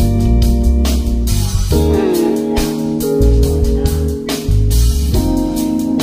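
Background music with drums, bass and keyboard and a steady beat.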